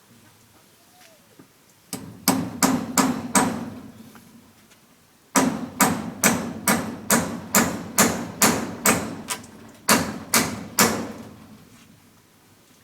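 Hammer blows in a steady rhythm, roughly two to three a second: a short run of about five strikes, a brief pause, then a longer run of about fourteen.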